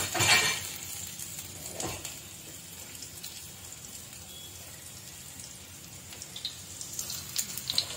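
Minced-chicken kebabs shallow-frying in oil in a ridged grill pan over a low flame: a soft, steady sizzle with a few crackling pops near the end. A short burst of louder sizzling at the very beginning as a kebab goes into the hot oil.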